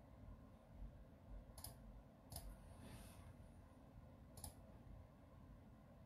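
Three faint, sharp clicks, about a second and a half in, two and a half seconds in and four and a half seconds in, over near-silent room tone.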